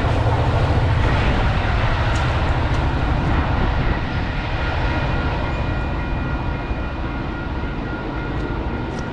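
MBTA commuter rail train passing on the track, an even rumble of wheels on rail that slowly fades as it moves away.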